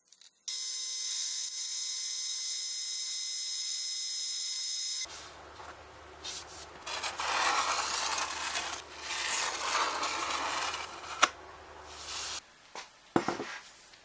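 Bench drill press running at a steady pitch for several seconds, then stopping abruptly. A rough rubbing, rasping sound follows in uneven swells over a low hum, with a sharp click and a few light metal clinks near the end.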